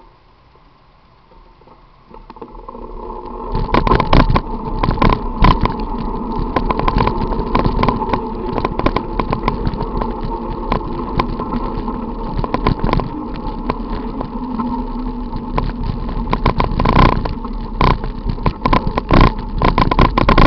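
Ride on a bicycle in city traffic heard from a camera on the bike: after a quieter start the noise rises about two seconds in to a steady rush of traffic and road noise, with frequent knocks and rattles as the bike runs over the street.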